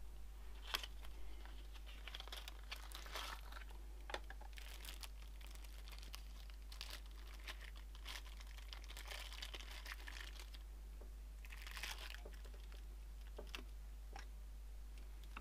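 Clear plastic packaging bags crinkling and rustling as they are handled, in irregular bursts, with a few sharp clicks and knocks from parts being picked up.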